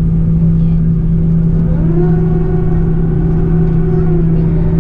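Airbus A340-300 flight-deck noise on the ground after landing: a loud, steady hum and rumble from the idling engines and cockpit systems. About two seconds in, a held tone with several overtones comes in for roughly two and a half seconds, rising and falling slightly.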